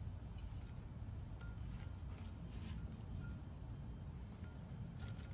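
Background ambience: a steady high-pitched thin whine or chirr over a low rumble, with a few faint soft clicks from handling.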